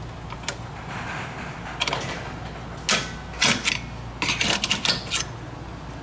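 Irregular metallic clicks and clacks of a screwdriver and hands working a rear drum brake's shoes, return springs and adjuster hardware. They come in scattered strikes, with a quick cluster of clacks about four seconds in.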